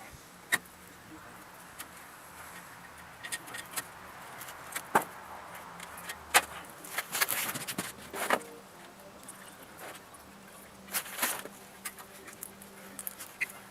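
Scattered metallic clinks and knocks of hand tools and parts being handled while the radiator hose and fan shroud are worked free, with a busier run of knocks in the middle and another about eleven seconds in.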